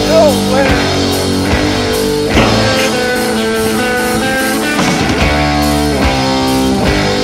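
Rock music with electric guitar and drums, with a bending guitar note near the start.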